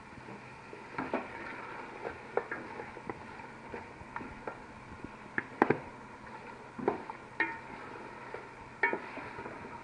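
A spoon stirring beef and masala frying in a pot, knocking and scraping against the pot several times at irregular intervals, the loudest knock about halfway through, over a low steady hiss of frying.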